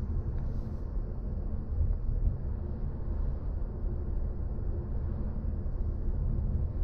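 Steady low road and tyre rumble of a BMW i4 M50, an electric car, driving along with no engine note.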